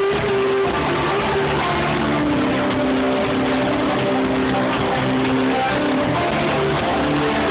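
Live band playing instrumental electronic rock, with guitar and drums under long held synth-like notes. It is loud and steady, and the top end is cut off as by a phone's microphone in the crowd.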